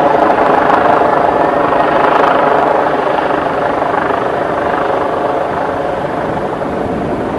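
Aircraft engine noise: a loud, steady drone with an even buzz in it, slowly fading.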